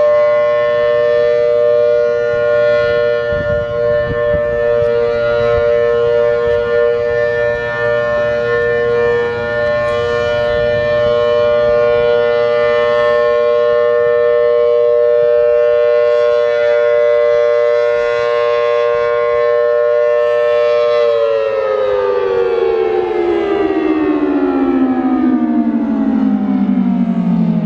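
Federal Sign & Signal Thunderbolt 1000 blower-driven warning siren sounding its steady Alert signal, a loud held two-note chord from its 4/5-port rotor. About 21 seconds in the blower cuts and the siren winds down, its pitch falling steadily.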